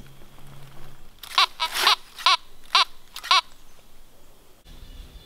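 Fisher F19 metal detector sounding six short beeps in quick succession, each bending slightly up and down in pitch, as the search coil is swept back and forth over a buried metal target that reads about 61 on its screen.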